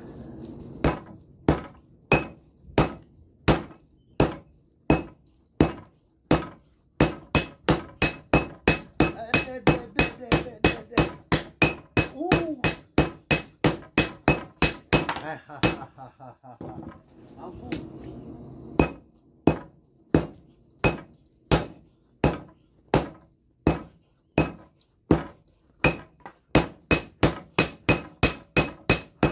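Sledgehammer blows on red-hot steel on an anvil as a blade is hand-forged from hardened breaker-chisel steel: steady strikes two to three a second, each with a short metallic ring, broken by a pause of about two seconds roughly sixteen seconds in.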